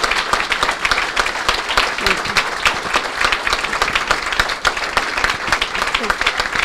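A roomful of people applauding: dense, steady clapping of many hands at once.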